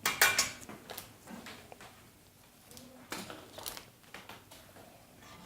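Brief handling noise, a rustle and clicks loudest in the first half second, then a few scattered small clicks over low room tone.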